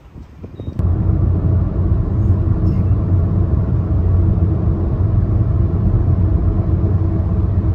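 Steady low rumble of a car driving along the road, cutting in abruptly under a second in after a brief quieter moment.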